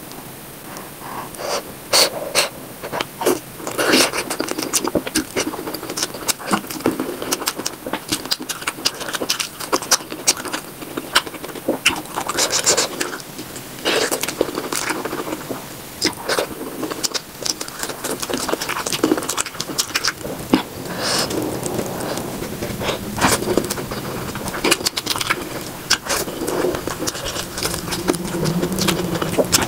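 Close-miked eating sounds sped up to triple speed: rapid wet chewing, lip smacking and mouth clicks as egg curry and rice are eaten by hand.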